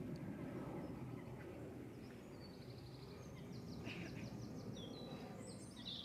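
European robin singing faintly: runs of short, high, thin notes starting about two and a half seconds in, over a steady low background hum.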